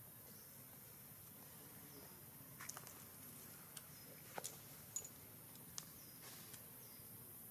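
Faint forest ambience with a steady high hiss, broken near the middle by about half a dozen short, sharp clicks and ticks.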